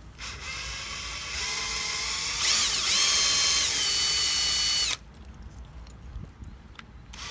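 Small power drill drilling out the rivet on the base of a die-cast toy car. The motor whine rises in pitch twice as it speeds up, holds steady, then stops suddenly about five seconds in, followed by a few light clicks.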